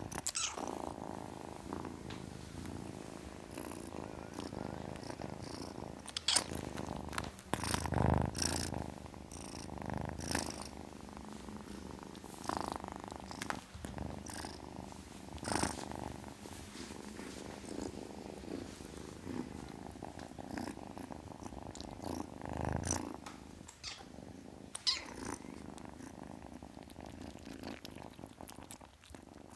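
Kitten purring steadily, a continuous low, finely pulsing rumble, with a few brief louder sounds mixed in, the strongest about eight seconds in.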